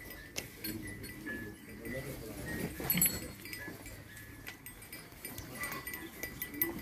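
Cattle-shed ambience among dairy cows: scattered clinks and knocks from the animals moving about, with a louder sharp knock about three seconds in.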